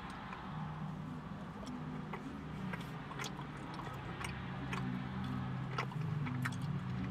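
A person chewing a bite of a chocolate chip brownie-cookie, with scattered small, irregular mouth clicks and smacks.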